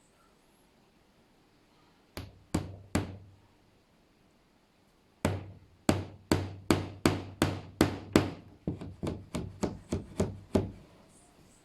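Hammer driving metal shelf-support pins into wooden shelf uprights: three taps about two seconds in, then after a pause a steady run of about sixteen blows, roughly three a second.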